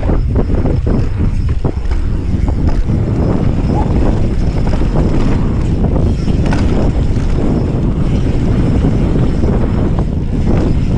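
Wind buffeting the camera's microphone while riding a mountain bike fast downhill, over the rumble of knobby tyres on a hard-packed dirt trail. Frequent clicks and knocks from the bike jolting over the rough surface run through it.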